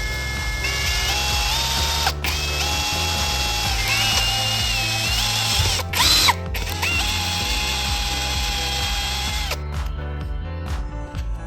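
Small electric drill motor whining in runs, its pitch stepping up and down. It cuts out briefly about 2 s and 6 s in, with a quick rising spin-up near 6 s, and stops about three quarters of the way through, leaving a few light clicks. Background music plays throughout.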